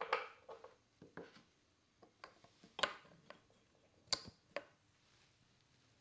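Small bottles being handled and set down on a wooden side table: a scattered series of about eight sharp knocks and clicks, the loudest just under three seconds in.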